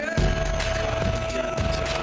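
Soundtrack music: a long held note over a steady drum beat.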